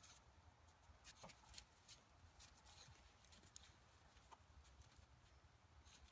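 Near silence, with faint scattered clicks and a low rumble.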